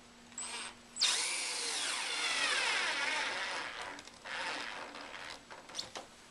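Cordless drill driving a 2-inch drywall screw into a wooden chair frame. There is a short spin about half a second in. About a second in a longer run starts suddenly, its whine falling in pitch as the motor slows under the load of the screw, and a shorter burst follows about four seconds in.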